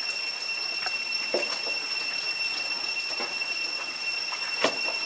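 Forest insects droning with a steady high-pitched whine over the hiss of rain, with a few short knocks, the loudest about four and a half seconds in.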